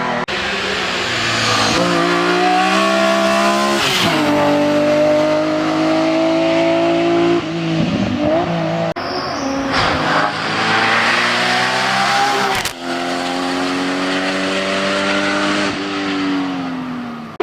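Hill-climb racing car engine at high revs under full throttle, its pitch climbing through each gear and dropping sharply at the gear changes, about four times. Near the end the revs fall away as it eases off.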